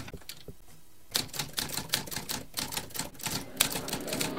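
Typewriter keys clacking: a few scattered strokes, then from about a second in a run of quick, irregular keystrokes, about five a second.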